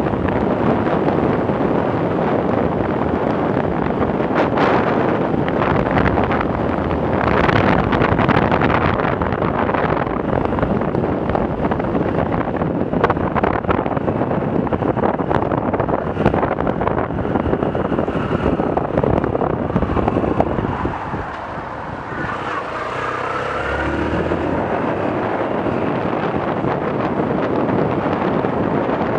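Wind blasting across the microphone of a Yamaha YBR125 motorcycle at road speed, with the bike's single-cylinder four-stroke engine running under it. The wind noise eases briefly about three-quarters of the way through.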